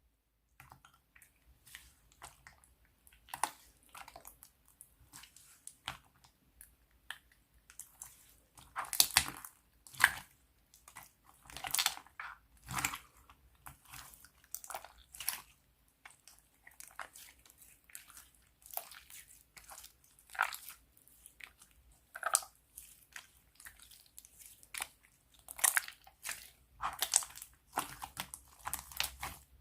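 Hands squeezing and poking slime: irregular sticky crackles and small pops, sparse at first and louder in clusters a third of the way in and again near the end.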